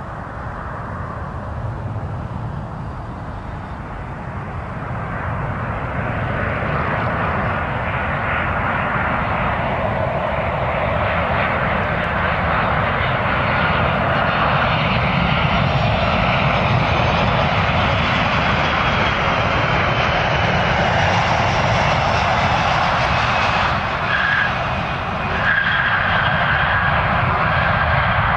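Boeing 737 airliner's twin jet engines on approach to land: a steady rumble and whine that grows louder over the first dozen seconds as the jet nears, then holds, with a brief dip about twenty-four seconds in.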